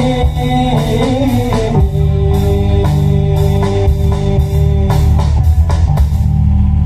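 Live band playing through a large outdoor PA sound system: heavy bass, a drum kit with regular cymbal hits, and guitar. A melodic line moves in the first two seconds, then gives way to held notes.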